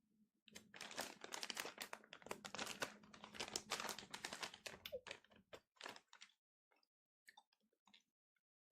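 A plastic candy bag of Bubs crinkling and crackling as it is handled and opened, thick for about five seconds and then thinning to a few scattered clicks.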